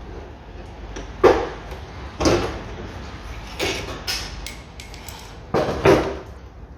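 A series of separate knocks and clunks, about five over a few seconds, from a plastic car door trim panel being worked loose and pulled off the door.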